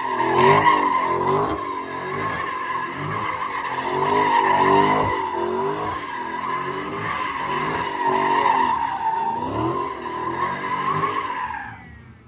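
Dodge Challenger doing donuts: a steady high tyre squeal over the engine, which revs up and down in waves as the car circles. The squeal and the engine drop away near the end.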